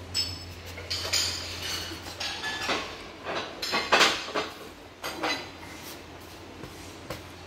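Porcelain crockery clinking and knocking together in irregular clatters, some strikes ringing briefly, the loudest about four seconds in, over a steady low hum.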